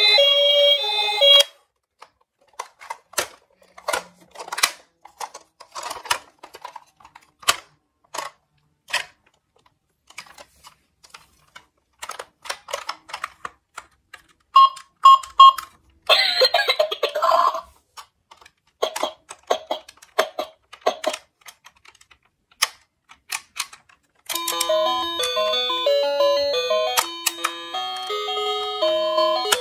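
A plastic toy ambulance being handled. Its electronic siren tune cuts off in the first second or two, then come many sharp plastic clicks from its doors and parts. About half-way there are three short electronic beeps and a brief noisy sound effect, and near the end a chiming electronic tune starts.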